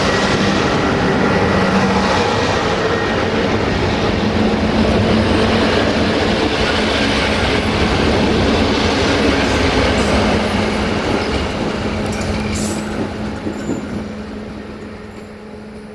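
A train passing close by, the noise of its wheels and cars loud at first, with a steady hum under it, then fading away over the last few seconds.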